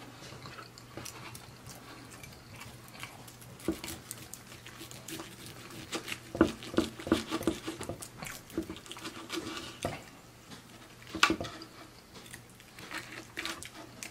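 Close-miked eating and cutlery sounds: chewing, then a metal knife and fork cutting a deshelled fried lobster tail on a wooden cutting board. Scattered clicks and short scrapes, busiest in the middle, with one sharp click a little past the middle.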